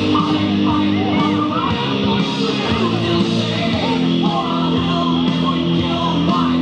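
Rock music with singing, its chords held and changing every second or two.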